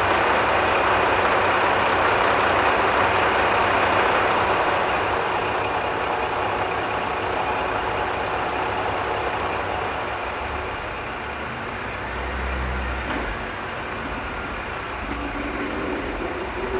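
Diesel railcar engine idling steadily, somewhat quieter after about five seconds.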